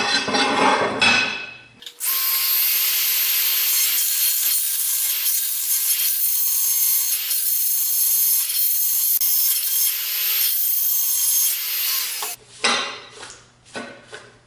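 Handheld rotary tool running a burr in a drilled hole in a steel plate, enlarging the hole. It is a steady, high-pitched grinding hiss over a faint whine, starting about two seconds in and stopping about two seconds before the end.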